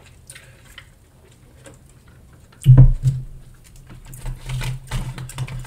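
Quiet sipping from a soft-drink cup, then a loud thump about two and a half seconds in as the cup is set on the table. After that comes the clicking and rustling of a plastic fork scraping around a foil tray of gravy loaded fries.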